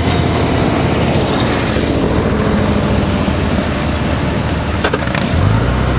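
Passenger train rolling over a steel truss bridge: a steady, loud rumbling rattle. A steady low engine hum sets in near the end.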